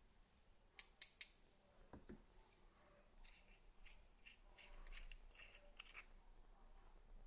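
Faint handling sounds of a small metal-and-glass rebuildable tank atomizer being taken apart: three sharp metallic clicks about a second in, then a run of light ticks and rubbing as the parts are unscrewed and pulled apart.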